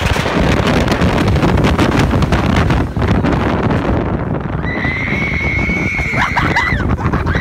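Wind rushing and buffeting over the microphone on a moving rollercoaster, with a rider's long, high-pitched scream held from about two-thirds of the way in.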